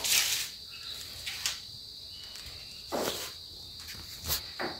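A few scattered footsteps and handling knocks from a hand-held phone being moved about, over a steady high-pitched hum.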